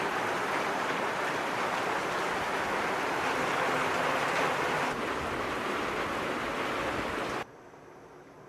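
Heavy rain falling, a dense steady hiss that cuts off suddenly about seven seconds in.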